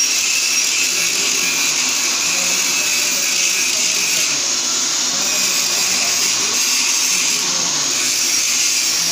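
Handheld electric angle grinder grinding steel, the abrasive disc against the metal making a steady harsh grinding noise over the motor's high whine.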